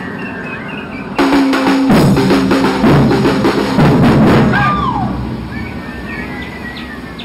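Samba percussion band of surdo bass drums and other drums comes in suddenly about a second in with a loud burst of fast, dense beating, the big drums ringing at low pitches that step downward. After about three seconds the playing stops and the sound dies away.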